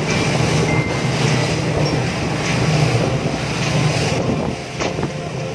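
Motorboat running at speed: a steady engine drone under the rush and splash of water breaking along the hull, dipping briefly about four seconds in.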